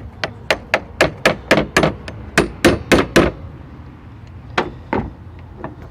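Hammer striking a car part: about a dozen quick blows over three seconds, then a pause and a couple more single strikes, knocking a stuck wiper transmission linkage loose.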